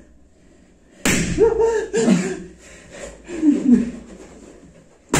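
A sharp thump about a second in, followed by short vocal sounds from a person, and another sudden thump near the end.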